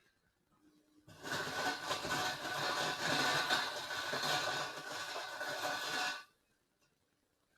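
Water spraying to rinse soap off chrome wire-wheel hubcaps. It comes on abruptly about a second in, runs steadily for about five seconds with a hiss, and shuts off abruptly.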